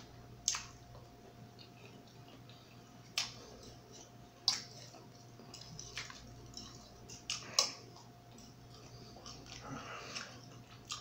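Close-miked chewing and mouth sounds of a person eating rice and sausage, with a few short, sharp clicks and smacks scattered through, over a faint steady hum.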